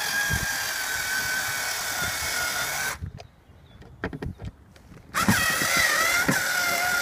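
Cordless electric screwdriver driving a screw into vinyl siding. The motor whines steadily for about three seconds and stops, there are a few clicks, and it runs again for the last couple of seconds.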